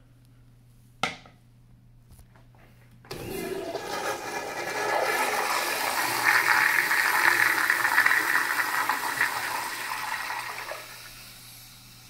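Commercial tankless toilet flushed by its flush valve: a sudden loud rush of water about three seconds in that builds for several seconds, then drops away near the end to a faint trickle as the bowl refills. About a second in there is a single sharp clack as the plastic seat is set down.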